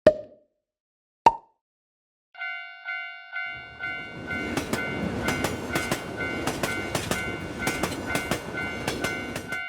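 Two short pops, then a Japanese level-crossing alarm starts dinging about twice a second. About a second later a train passes with wheel clatter while the bell keeps ringing.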